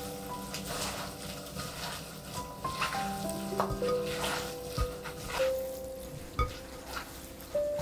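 Gloved hands tossing cooked thin wheat noodles with a thick red sauce, chopped kimchi and chicory in a glass bowl: wet squishing and smacking, with a few low thumps.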